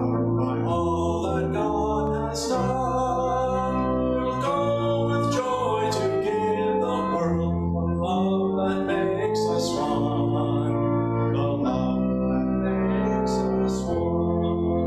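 Church organ playing slow, sustained chords that change about once a second.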